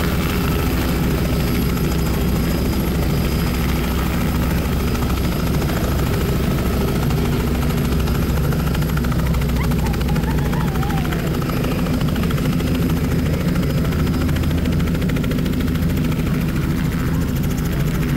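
Private helicopter coming in to land, its rotor and engine running loud and steady.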